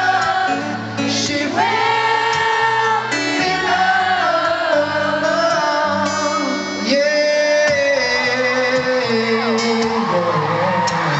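Live pop ballad: a male lead voice singing over strummed acoustic guitar and band, recorded from the crowd in a large hall.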